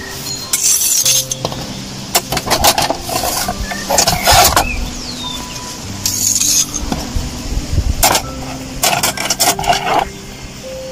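Pieces of tandoor-roasted lamb being set down on a stainless steel tray, with metal clinks and clatter against the tray in several short bursts.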